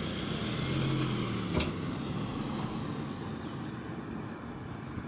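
Toyota Camry's 2AZ four-cylinder engine and exhaust as the car pulls away and drives off, swelling briefly and then fading as it moves away. One sharp click about a second and a half in.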